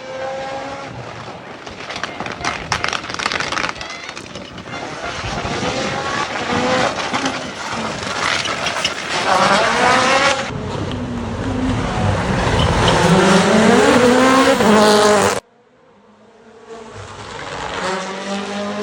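Rally car at full attack, its engine revving up and down through the gears with tyre noise, getting louder as it comes close. The sound cuts off suddenly about fifteen seconds in. Another rally car's engine then rises as it approaches.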